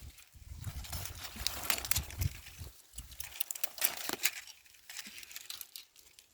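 Dry leaves and vines rustling and crackling, with many short sharp snaps, as cowpea pods are picked by hand among the plants.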